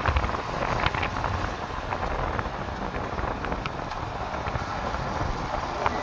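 Road traffic rumbling past, with wind buffeting the microphone and a few short knocks.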